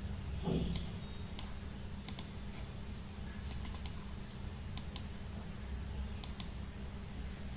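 About a dozen sharp clicks of a computer mouse and keyboard, several in quick pairs, over a steady low hum.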